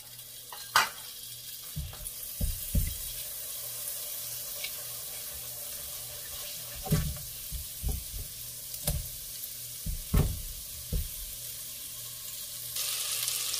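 Butter melting and sizzling in a hot coated pot: a steady hiss that grows louder near the end, with about ten soft knocks of a silicone spatula against the pot as the butter is pushed around.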